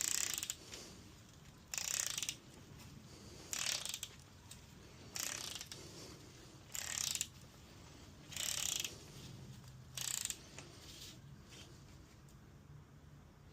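Ratchet of a large wrench clicking in seven short bursts, about one every second and a half, as main bearing cap bolts are run down. It is followed by a few fainter ticks near the end.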